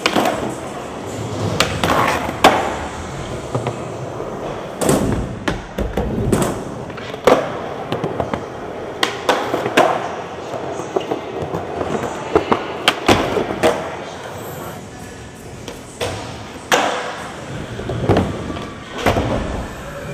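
Skateboard wheels rolling on a smooth concrete floor, with repeated sharp clacks and thuds from the board popping, hitting ledges and landing.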